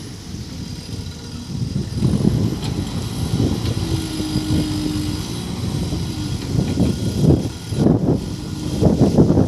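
JCB 3CX backhoe loader's diesel engine running and revving in uneven surges as it works, with a brief steady whine about four seconds in.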